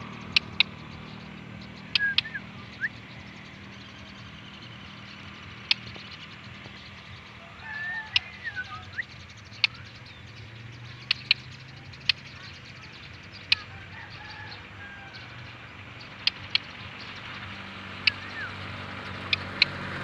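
A caged white-rumped shama giving a few short, soft chirps, with scattered sharp clicks as it moves about its cage.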